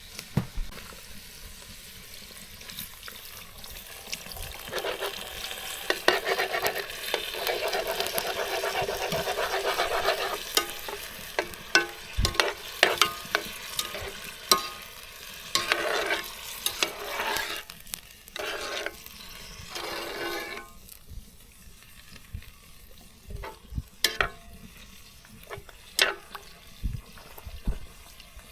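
Food frying and sizzling in a pan while it is stirred and scraped with a utensil. The sizzle is loudest and most continuous from about five to ten seconds in, then comes in shorter bursts. Near the end only a few scattered clicks and knocks remain.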